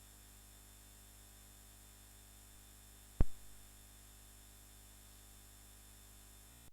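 Steady low electrical mains hum from a public-address sound system, with one sharp click about three seconds in.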